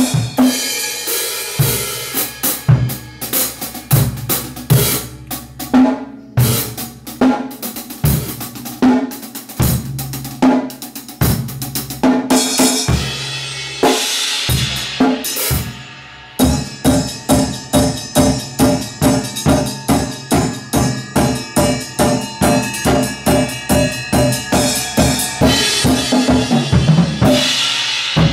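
Drum kit playing a rock beat, kick, snare and cymbals, with pitched instruments held underneath. After a short drop about halfway through it settles into a steady pulse of about three hits a second.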